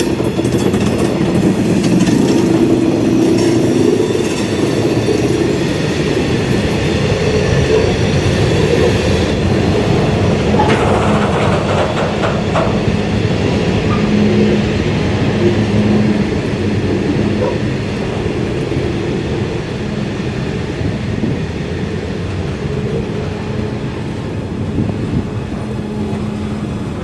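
A steam-hauled train running along the track with a steady, continuous rumble.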